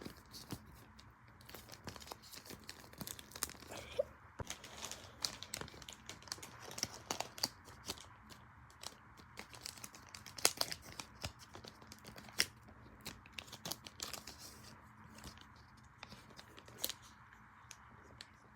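Irregular crinkling and crackling, many sharp little clicks at an uneven pace, over a steady hiss.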